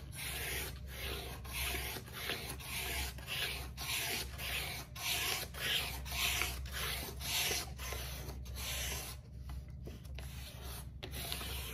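Wooden tongue depressor rubbed back and forth over the paper backing of a vinyl stencil on a wooden board, burnishing the stencil down: repeated scraping strokes about two a second, thinning out near the end.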